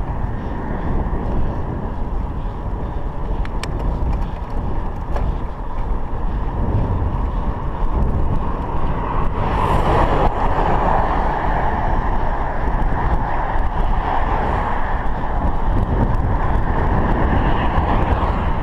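Cars overtaking a moving bicycle on a paved road over a steady wind rumble on the microphone. A pickup passes close by about halfway through and another car near the end, raising the road noise.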